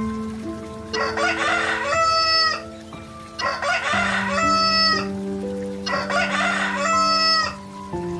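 A rooster crowing three times, each crow a rough rising start settling into a held cry, over steady background music.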